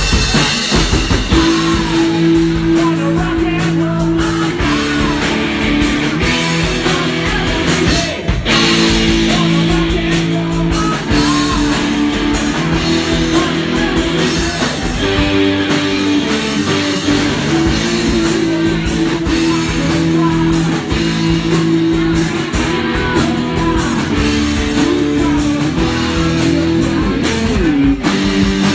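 Live rock band playing: electric guitar and drum kit, with a singer on the microphone. The chords are held for a second or two at a time over a steady drum beat.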